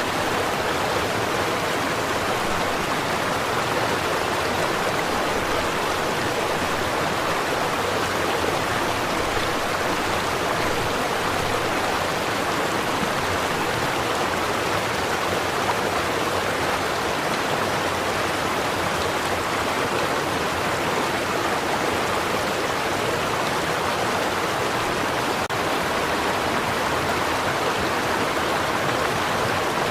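A small stream of running water flowing steadily, an even, continuous rushing without pauses.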